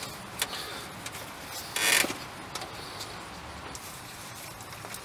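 Socket wrench working a bolt into a new water pump: scattered small metal clicks, with one short louder rasp about two seconds in.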